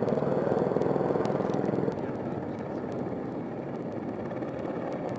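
AH-64 Apache attack helicopter in flight, its rotor and engines making a steady, fast chopping; the sound drops somewhat in level about two seconds in.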